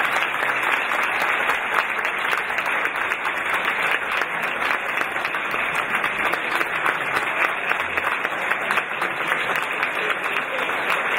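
Audience applauding steadily: dense clapping of many hands that holds at an even level.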